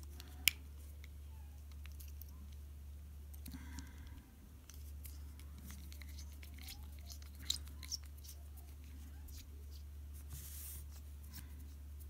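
Faint clicks and scrapes of a screwdriver bit working at a small screw in the end of a brass padlock cylinder, a screw held fast with Loctite; one sharper click about half a second in. A steady low hum runs underneath.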